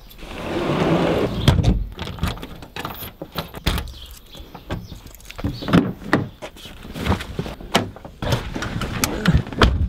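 Keys jangling and clicking in a door lock as a glass door is locked, then a car door being opened and shut: a string of sharp clicks and knocks amid rustling.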